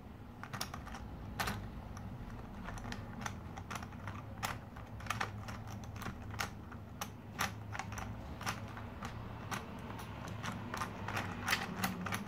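Irregular light plastic clicks and ticks from a motorized Thomas Cranky toy crane's mechanism, over a steady low hum, as its hook is worked down. The hook is sticking and not lowering properly.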